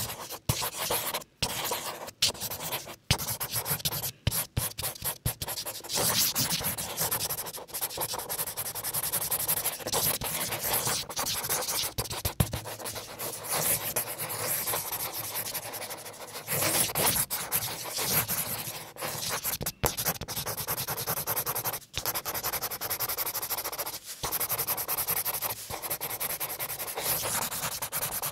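Pen tip scratching on paper as a plastic spirograph gear is rolled around inside a toothed plastic ring, drawing a looping pattern. A continuous scratchy rubbing, broken by many brief pauses.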